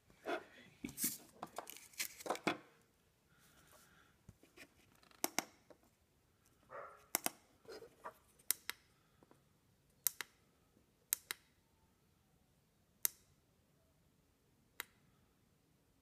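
Handling of a small clock-kit circuit board, then about nine sharp single clicks a second or two apart, some in quick pairs, from the tactile push-buttons on the SH-E 879 digital clock kit being pressed.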